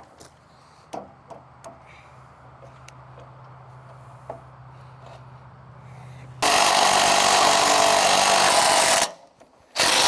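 A handheld power tool run in two loud, steady bursts about two and a half seconds into the second half, the first about three seconds long and the second shorter after a brief pause, while parts are being bolted onto a sawmill frame. Before it come a few light clicks and knocks over a faint steady hum.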